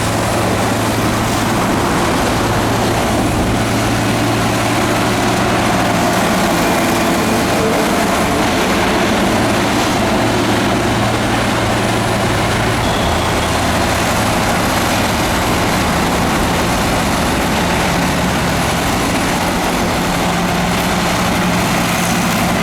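Heavy diesel earthmoving machine running steadily, its engine holding a constant low pitch at an even loudness.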